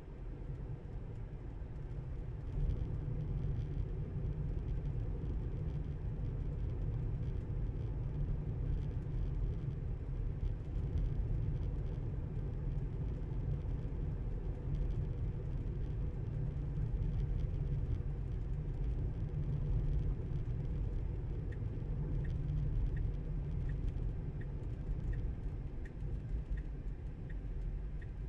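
Steady low road and tyre rumble inside a moving Tesla's cabin. About three-quarters of the way through, a turn-signal indicator starts ticking evenly, a little over once a second.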